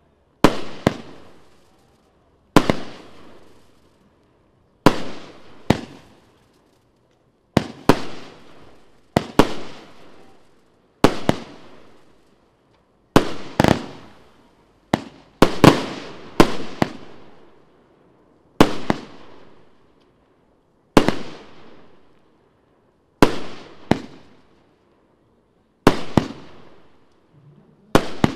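Evolution Fireworks 'Golden Age' firing: loud sharp bangs, often in pairs, roughly every two seconds, each trailing off in a fading echo.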